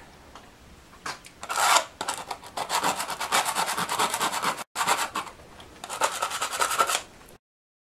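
Sandpaper rubbed quickly back and forth along the edge of a thin metal palette knife, a fast run of rasping strokes, sanding off the burrs on its sharp edge. The strokes break off briefly past the middle and stop abruptly near the end.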